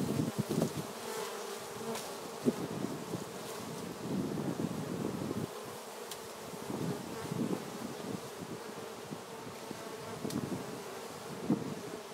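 Honeybees buzzing around an opened hive, the buzz swelling and fading as individual bees fly close past. One sharp knock comes about two and a half seconds in as the wooden hive box is handled.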